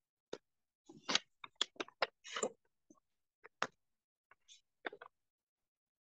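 Computer keyboard keystrokes: faint, irregular clicks, about a dozen, with short gaps between them.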